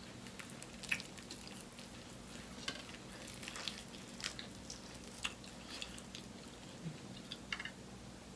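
Close-miked mukbang eating: quiet wet chewing of honey-butter-sauced fried chicken, with scattered sharp, sticky mouth clicks and smacks every second or so.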